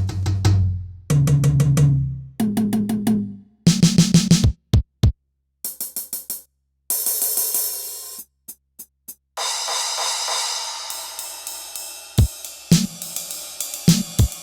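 Turbo Electronic TDX-16 electronic drum kit sounding its GM Standard preset: runs of tom hits that rise in pitch, then short drum and hi-hat strokes with pauses between them. About nine and a half seconds in a crash cymbal rings out, and near the end a beat with kick drum starts.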